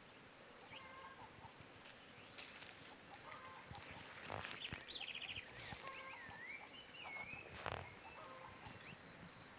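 Rufous-bellied thrush (sabiá-laranjeira) singing short, separate fluty phrases over a steady high insect drone, with a fast run of notes about halfway through. A couple of brief knocks are heard, about four and eight seconds in.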